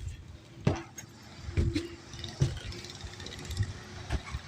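Irregular knocks and metallic clinks of building-site work, about five in a few seconds, with a faint steady hum through the middle.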